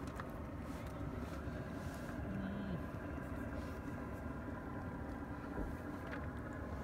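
Steady drone of a running engine, even and unchanging, with a brief faint voice about two and a half seconds in.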